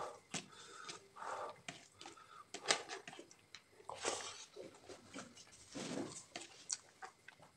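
Eating rice and curry by hand: fingers mixing wet food on a plate, chewing and mouth clicks, and breaths through the nose, faint and irregular.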